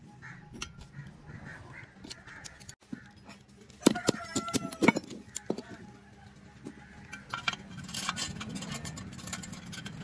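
Steel parts of a handmade toy road roller clinking and scraping as they are handled and fitted together. A cluster of sharp metal clinks with brief ringing comes about four to five seconds in, and a run of light scraping and clicking follows in the second half.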